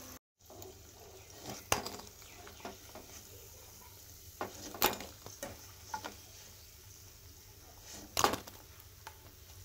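Hot oil sizzling quietly in a kadai around frying urad dal vadas, with a few sharp clinks of a metal spoon against the pan as they are lifted out; the loudest clink comes about eight seconds in.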